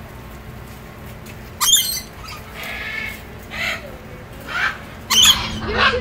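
Lorikeets screeching in an aviary: about six short calls, the loudest about a second and a half in and again near the end.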